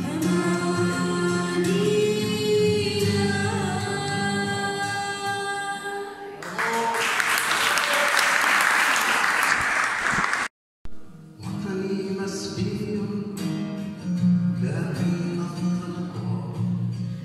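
A young girl sings long held notes to acoustic guitar. About six seconds in, the song gives way to a few seconds of applause, then a split-second gap of silence, and the guitar and singing start again.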